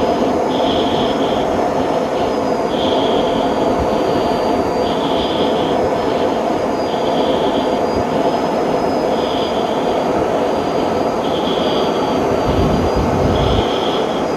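Steady rushing cockpit noise inside an F-16 fighter jet in flight, with a faint high whine. A short beep tone repeats about every two seconds, seven times.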